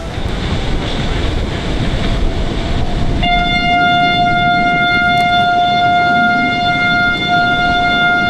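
Wind and sea rushing. About three seconds in, a horn starts and holds one steady note.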